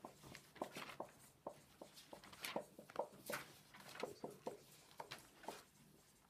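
Dry-erase marker writing on a whiteboard: a quick, faint run of short squeaks and scratches as words are written stroke by stroke.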